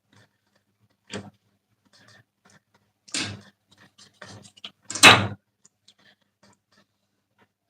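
A few brief knocks and rustling handling sounds in a small room, the loudest about five seconds in.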